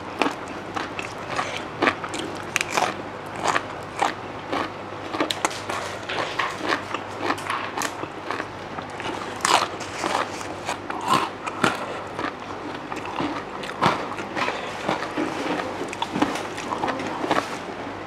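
Close-miked chewing: many small crisp crunches and wet mouth clicks of a mouthful of papaya salad and fresh leafy greens being eaten.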